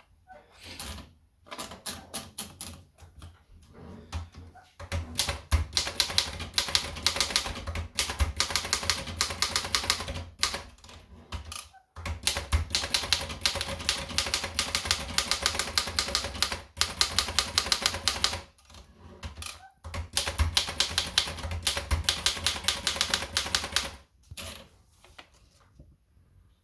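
Erika model 9 manual portable typewriter being typed on fast: rapid runs of key and typebar strikes broken by short pauses, stopping shortly before the end.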